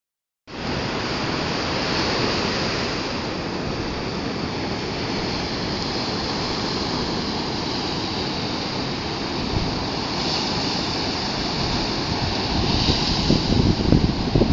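Rough sea: surf breaking and washing onto a sandy beach in a steady rush, swelling now and then, with wind buffeting the microphone more and more near the end.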